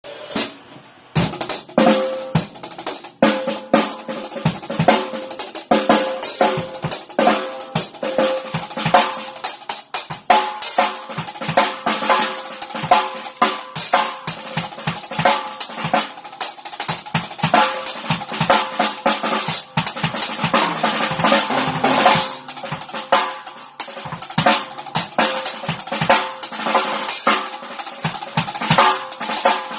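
Drum kit played with wooden sticks: mixed hi-hat and snare drum patterns in fast, changing rhythms, the snare ringing after its strokes. Playing starts about a second in.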